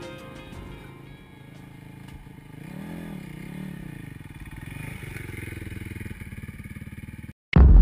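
Trail motorcycle engine running, revved up and down twice a few seconds in, then cutting off abruptly, with background music fading out at the start. Near the end a very loud sudden boom begins.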